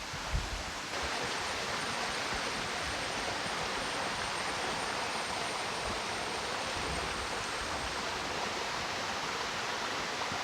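Water of a small waterfall rushing steadily over rocks, a continuous even rush that grows a little fuller about a second in.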